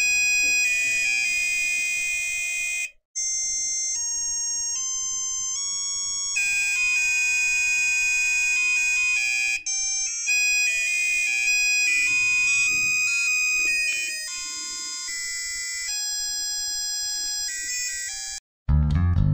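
Doorbell buzzer driven by an Arduino Nano playing a melody one note at a time, in thin, buzzy electronic tones that step up and down in pitch, with a brief break about three seconds in. Just before the end the buzzer stops and music with drums starts.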